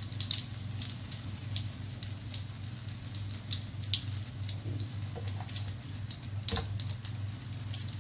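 Oil sizzling and crackling around banana-filled bread rolls shallow-frying in a nonstick pan, with scattered short pops over a steady low hum. There is one sharp click about six and a half seconds in.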